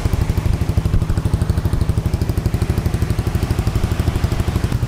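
Motorcycle idling through a smoke muffler exhaust fitted with a honeycomb dB killer in the neck and the stock dB killer in the end cap, an even pulse of about a dozen beats a second. The idle sounds much like the stock exhaust.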